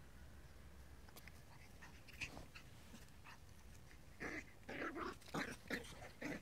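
Maltese puppy giving short yaps: one about two seconds in, then a quick run of about six near the end.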